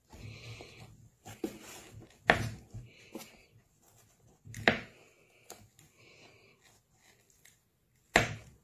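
Fingers scratching and rubbing at the nylon fabric cover of a ballistic backpack panel around a bullet hole, with three sharp knocks against it, about two seconds in, near the middle and near the end.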